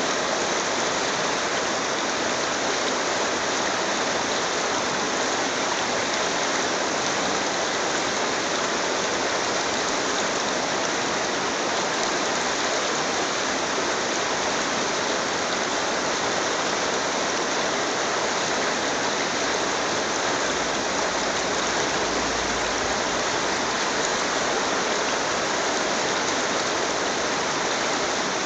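Shallow mountain brook rushing over pebbles and small riffles: a steady, unbroken rush of flowing water.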